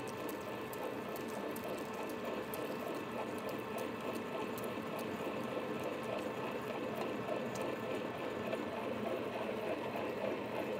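Arboga radial drill running at about 100 RPM, pushing a 1-3/8 inch twist bit through steel without coolant. The bit makes a steady, rapid fluttering chatter in the cut over a constant whine from the machine, with scattered faint clicks.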